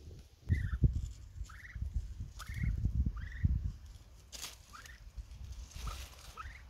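A Muscovy duck calling: about eight short, high, falling peeps, spaced half a second to a second apart, over low thuds and rustling in the grass.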